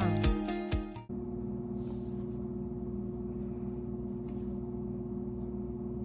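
Strummed background music that cuts off about a second in, followed by a steady low hum with a few faint rustles.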